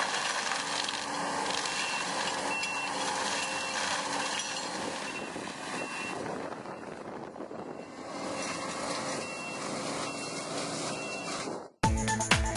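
Skid steer loader running with a mulcher attachment, its reversing alarm beeping steadily over the machine noise. Near the end the sound cuts off abruptly and music with a beat starts.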